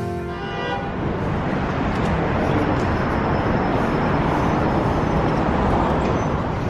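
Steady hum of road traffic and outdoor vehicle noise, with the last of a music sting ringing out in the first second.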